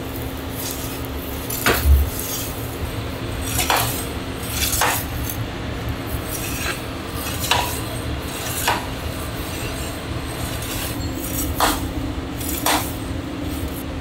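Metal utensils clinking and clattering against dishes and pans, about eight separate clatters, over a steady hum.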